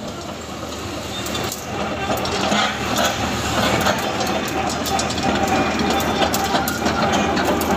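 Radio-controlled model tracked construction machine running: a small electric motor and gearbox whining steadily under a clatter of many quick clicks from the tracks. The sound swells over the first second or two, then holds.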